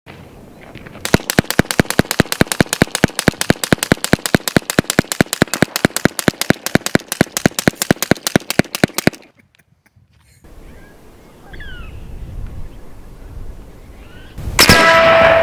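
Air rifle firing on full auto, a steady burst of about six shots a second lasting some eight seconds and stopping abruptly. Near the end comes a single much louder airgun shot with a metallic ring after it.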